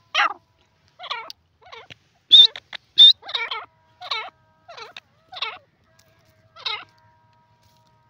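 Grey francolin calling in a string of short, harsh notes, about one every half second, with the two loudest near the middle carrying a high, ringing top.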